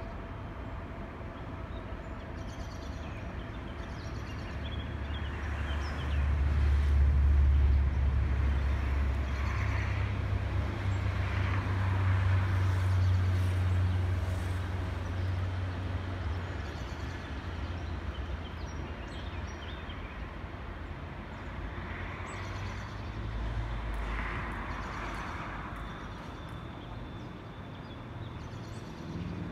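Outdoor ambience over a big city railway yard: a steady low rumble of distant traffic and rail noise that swells louder for several seconds from about six seconds in, then eases. A few faint bird chirps sound now and then.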